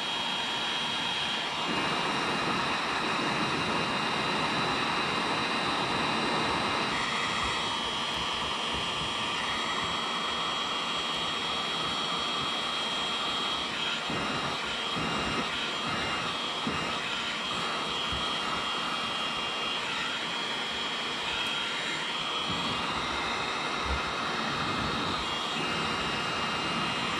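Electric heat gun running steadily, a rushing blast of air with a thin high whine from its fan, as it heats a plastic welding rod and the kayak hull during plastic welding.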